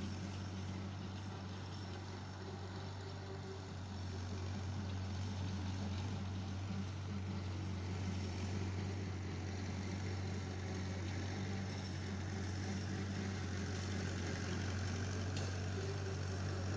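Massey-Harris 22 tractor's four-cylinder engine running steadily at a constant pitch, growing gradually louder as the tractor works its way closer.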